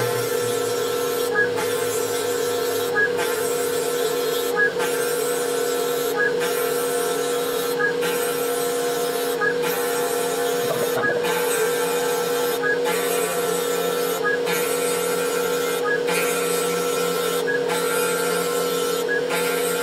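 Spindle of a small 3040 CNC mill cutting louvre slots into wood: a steady whine with the cutter's rasping, broken by a short pause about every one and a half seconds as each slot is finished and the next begun.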